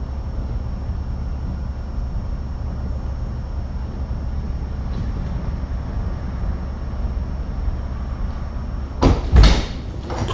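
Steady low rumble of sewer maintenance machinery running. About nine seconds in come two loud knocks, close together.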